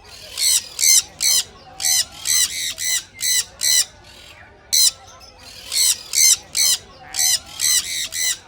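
Pet parrot screeching: a rapid series of short, shrill squawks, two or three a second, with a brief pause about midway.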